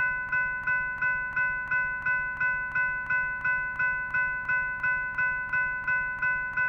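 Railroad grade crossing bell ringing steadily, about three strikes a second, then cutting off suddenly at the end.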